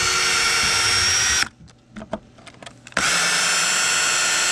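Cordless drill running at a steady speed as it backs screws out of old deck boards. It runs until about a second and a half in, stops, and starts again about three seconds in.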